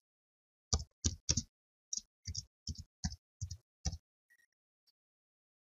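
Typing on a computer keyboard: about ten separate keystrokes at an uneven pace, stopping about four seconds in.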